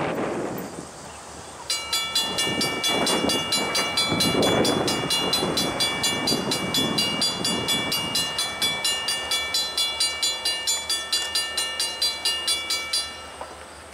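A railroad warning bell ringing rapidly, about three to four strokes a second, then stopping abruptly near the end.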